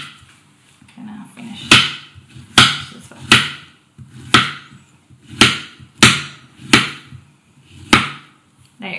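Chef's knife slicing a peeled raw plantain into rounds, the blade hitting the cutting board about eight times at uneven intervals of roughly a second.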